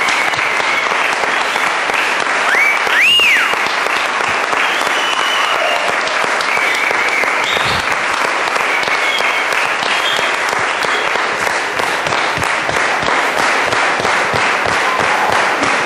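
Congregation applauding steadily for the newly introduced bride and groom, with one high cheer that rises and falls about three seconds in.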